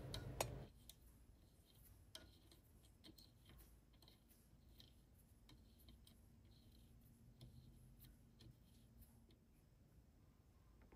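Faint, irregular clicks of an Allen key turning the set screws in a centrifugal clutch hub.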